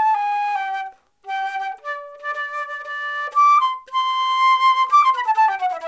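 Concert flute playing a short melody of held notes, breaking off briefly about a second in, then a quick descending run near the end. The tone is deliberately small and thin, made by covering the embouchure hole too much: no air in it, but it does not project.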